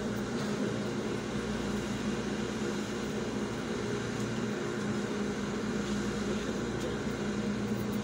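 Steady hum of a running vehicle, heard from inside its cabin: an even drone with a constant low tone, unchanging throughout.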